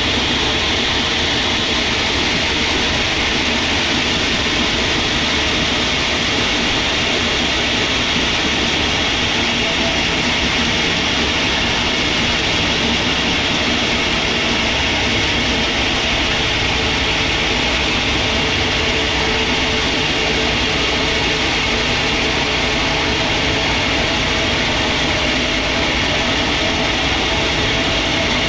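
Sawmill machinery running with a steady, even mechanical noise.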